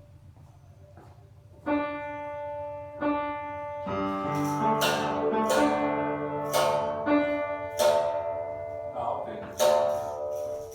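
Piano playing sustained chords, beginning about two seconds in. From the middle on it is joined by a handful of sharp, bright percussive hits.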